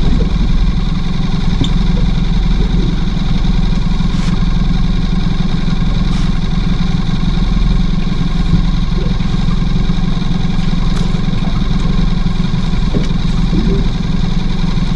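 Boat motor idling steadily at a constant pitch.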